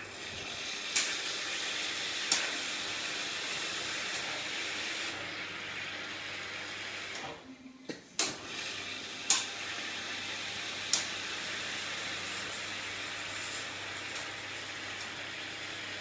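Elektra Maxi three-group espresso machine running hot water through its group heads into the drip tray, a steady hiss and splash, with sharp clicks as its keypad buttons are pressed. The flow stops briefly about seven seconds in, then starts again with a click, now over a low hum.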